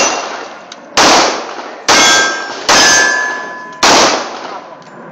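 .45 ACP pistol firing four shots about a second apart, each report trailing off before the next. A steel target rings after some of the hits.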